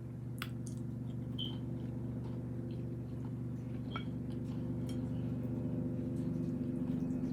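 A steady low hum that grows slowly louder, with scattered faint clicks and small mouth sounds from eating tuna and crackers.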